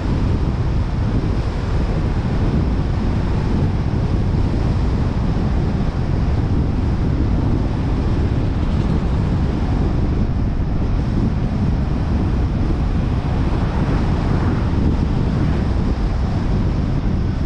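Steady wind noise buffeting the microphone of a camera mounted on a moving car, mixed with a low road rumble.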